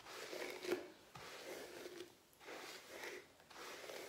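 Hairbrush drawn through long hair, soft brushing swishes repeated about four times, roughly a second apart.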